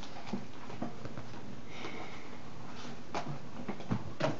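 A few faint clicks and light rustles of makeup brushes and containers being picked through and handled, over a steady background hiss.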